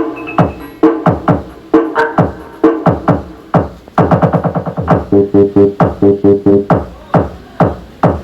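Electronic DJ remix dance music played loud through speakers during a sound test, driven by punchy kick drums whose pitch drops sharply on each hit. The kicks come faster, several a second, from about four seconds in.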